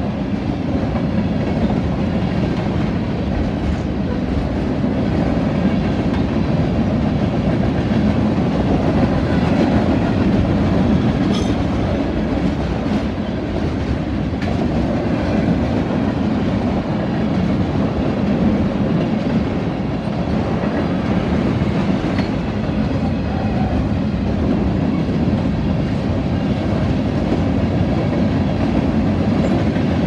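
Freight train cars rolling past: a steady rumble of steel wheels on the rails, with the clickety-clack of wheels over rail joints and occasional faint clanks.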